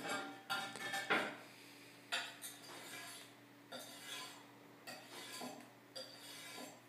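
Knife blade scraped in short strokes across the glazed face of a ceramic tile, sharpening and polishing the edge. The strokes come one or two a second, loudest in the first second and a half.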